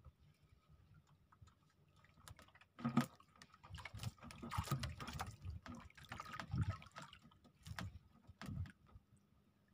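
Water lapping and slapping against the hull of a small wooden outrigger canoe in irregular splashes, the loudest about three seconds in and a run of them in the middle.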